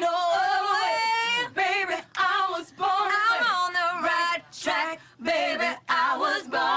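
A woman singing unaccompanied: sustained, wavering phrases with vibrato, broken by short pauses for breath.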